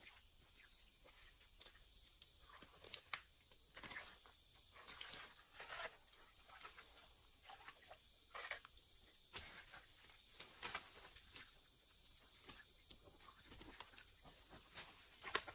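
Insects chirping in a high, repeated call, each phrase about a second long, with scattered short rustles and clicks.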